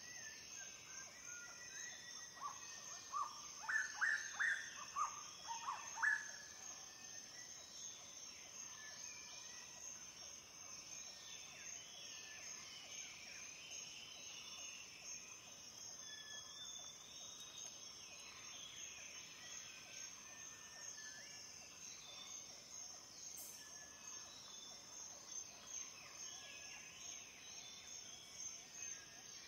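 Outdoor nature ambience: many small birds chirping, with a burst of louder calls a few seconds in, over a steady high insect drone.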